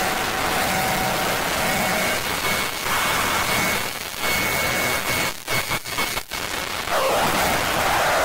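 Electronic noise music: a dense, steady hiss with faint held tones underneath, cutting out briefly several times about two-thirds of the way through.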